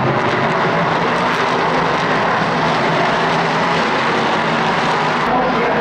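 A field of LMP3 prototype race cars running at speed, their V8 engines overlapping in a loud, steady drone of several engine notes at once.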